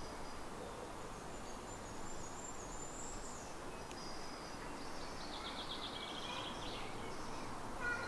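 Woodland birdsong over a faint steady background hiss: a thin, high song phrase about two seconds in, then a fast trill of rapidly repeated notes from about five seconds in.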